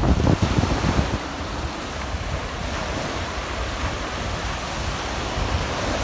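Sea waves washing onto a sandy beach as a steady hiss, with wind buffeting the microphone that eases about a second in.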